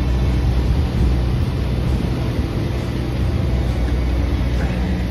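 Steady low rumble of city street traffic, with engine noise and general street hum.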